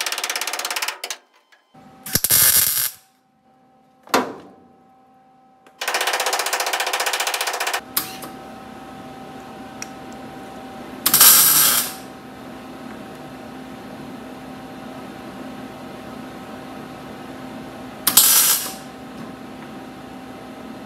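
MIG welder laying tack welds on thin sheet steel, joining a replacement lower hinge pillar to a 1965 VW Beetle body. About six crackling, sputtering bursts, the longest about two seconds, with pauses between them.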